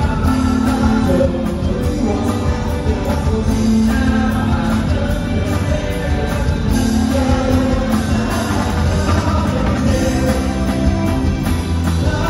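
Live rock band playing loud through the PA, with electric guitar and singing over a steady beat.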